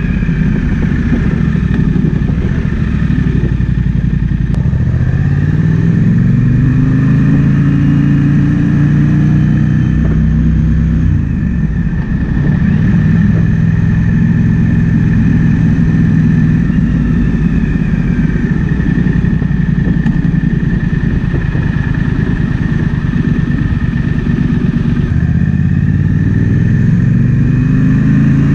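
Triumph Speed Twin 1200's parallel-twin engine under way, with wind rushing over the microphone. The revs climb a few seconds in, drop back near the middle and hold steady, then climb again near the end as the bike pulls through the gears.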